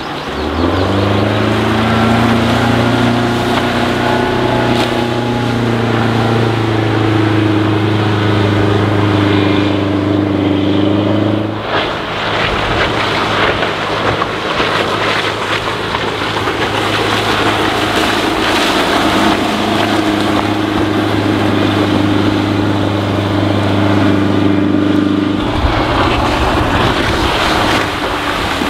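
Mercruiser 3.0L four-cylinder sterndrive engine of a Bayliner 1950 Capri bowrider running at speed on the water, a steady drone. Its note shifts abruptly about 12 seconds in and again near 25 seconds.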